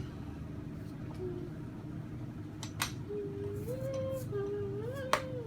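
A child humming a short wavering tune, starting about halfway through, over a steady low hum in the room. Two sharp clicks, one a little before the humming and one near the end.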